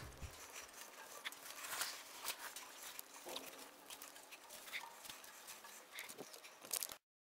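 Faint, irregular footsteps and scuffs with handling noise from a handheld camera over a low hiss. The sound cuts off abruptly near the end.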